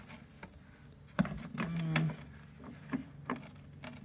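Hand tool working at a plastic car headlight housing: a sharp click about a second in, a short squeak just after, then a few light clicks and taps.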